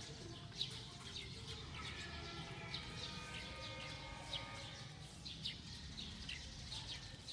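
Small birds chirping in short high notes every second or so, over a faint low rumble. A faint drawn-out tone is heard about two to four seconds in.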